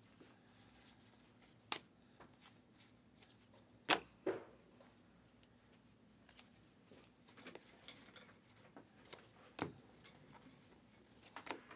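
Faint handling of a stack of trading cards: cards sliding and being flicked from the stack, with a few short sharp clicks spaced several seconds apart and light rustling in between.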